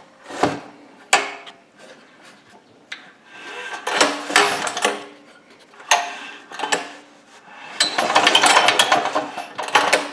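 196cc 168F single-cylinder diesel engine cranked over by hand with the compression release held open, so it turns without firing: the way air is bled from a loosened injector line until fuel comes out. There are scattered knocks and a few short bursts, then a longer, louder stretch of cranking near the end.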